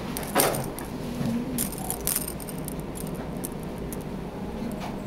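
Metal tag and charms on a cat's collar jingling in small scattered clinks as the cat shifts under a petting hand, with a soft thump about half a second in.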